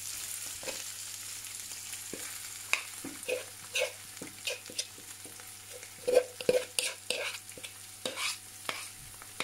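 A pounded mixture of fried pork, garlic, shallots and chili sizzling in hot oil in a pan, a steady hiss. From about three seconds in, irregular stirring strokes scrape and clink against the pan as it is stir-fried.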